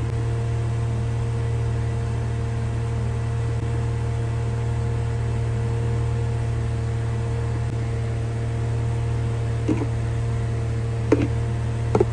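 Steady low electrical hum with hiss, as of a running kitchen appliance or fan. Near the end, a few short knocks and scrapes of a spatula against the pan of curry gravy as it is stirred.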